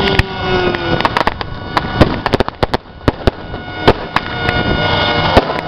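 Pyrotechnic charges going off in an irregular string of about a dozen sharp bangs, bunched most closely near the middle. Under them, the engines of model warplanes run steadily.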